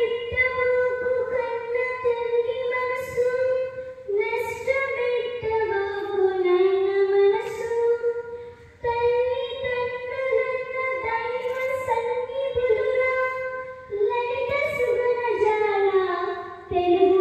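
Children singing a song, a melody of long held notes in phrases of about four to five seconds with brief breaks between.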